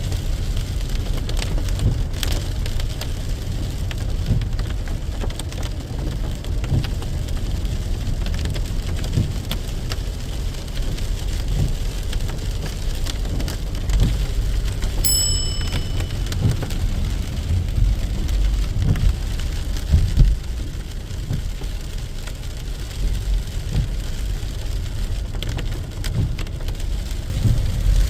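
Rain beating on a moving vehicle, heard from inside the cabin over steady low road and engine rumble. A short high beep sounds about halfway through.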